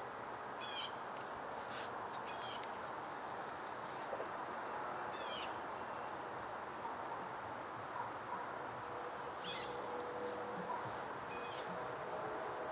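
Outdoor backyard ambience: birds give short chirps every couple of seconds over a steady background hiss, with a thin, high, steady insect drone.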